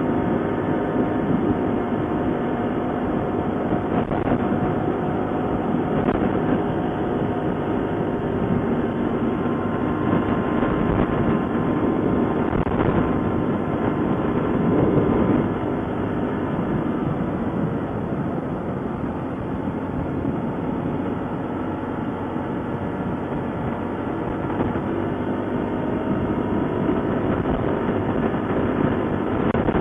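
ATV engine running while riding, a steady dense rumble that eases a little about halfway through.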